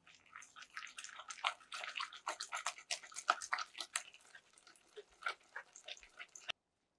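Wire balloon whisk stirring a thick financier batter of egg white, sugar and almond flour in a glass bowl: quick clicking and scraping of the wires against the glass, several strokes a second. It cuts off suddenly near the end.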